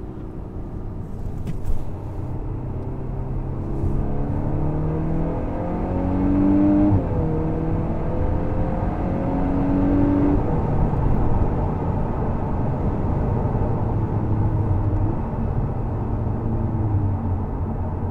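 2024 VW Golf R's turbocharged 2.0-litre four-cylinder engine pulling under acceleration. Its pitch rises, dips at an upshift about seven seconds in, rises again, then settles into a steady cruise over tyre and road noise. A single click comes near the start.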